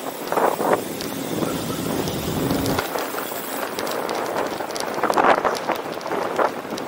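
City street noise: passing traffic and general urban ambience, with brief louder swells about half a second in and about five seconds in.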